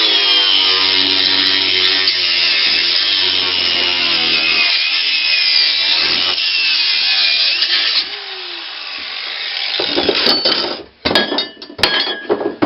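Angle grinder cutting into a sump pump's metal housing, running at full speed for about eight seconds before winding down. Near the end come several sharp metal knocks and clanks.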